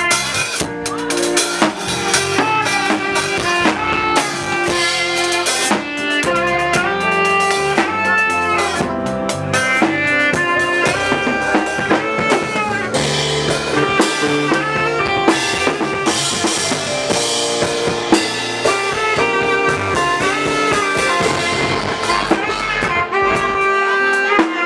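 Band music: a drum kit with snare and bass drum playing a steady beat under several melodic instruments playing changing notes.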